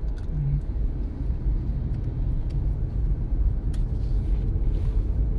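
Steady low road and tyre rumble inside the cabin of a 2007 Toyota Prius as it drives along.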